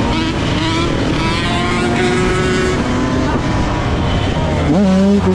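Motor vehicle engines running, with several pitches sliding up and down. Near the end one engine revs up quickly and holds a steady higher pitch.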